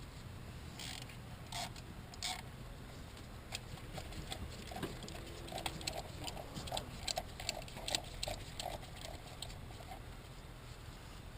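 Small metal parts and hand tools clicking and tapping while bolts are fitted and threaded by hand: a few separate taps at first, then a quicker run of light clicks, about three a second, in the second half.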